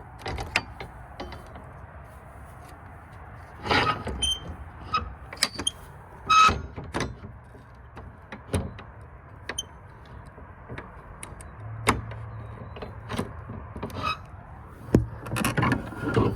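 Irregular clicks, knocks and rustles of footsteps and a hand-held camera being handled while walking outdoors, over a faint steady low hum.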